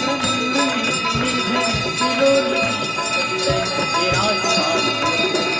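Aarti hand bells ringing continuously, with many bell tones sounding at once, over devotional singing or chanting.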